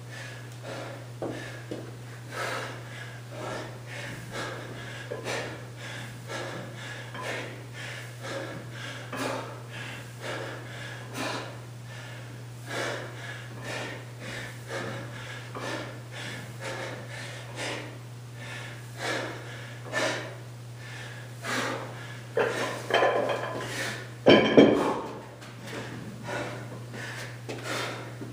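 A man breathing hard during kettlebell goblet squats, a sharp exhale or gasp with each rep about every second and a half, with a louder burst about three-quarters of the way in. A steady low hum runs underneath.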